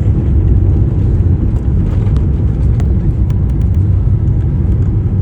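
Steady low rumble of airliner cabin noise from the engines and airframe, heard from inside the cabin, with a few faint clicks.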